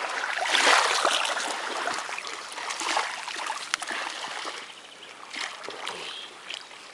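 Water splashing and trickling, loudest about a second in and fading later, with a few light knocks.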